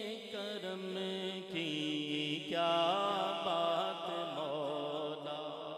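A man singing a naat without instruments, holding long wavering, ornamented notes into a microphone between the sung lines.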